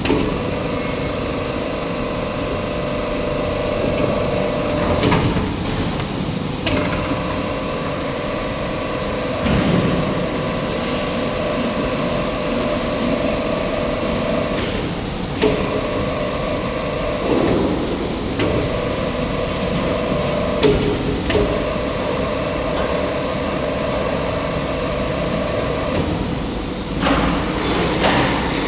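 Motor-driven machine running with a steady hum, tested in forward and reverse: the sound breaks off and shifts, with a knock, every few seconds as the direction changes.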